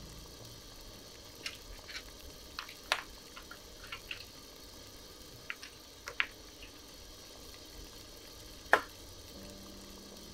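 Clam shells clicking and knocking as clams are dropped one at a time into a pot of simmering radish broth: about a dozen sharp, irregular clicks, the loudest a little before the end, over a faint steady hiss.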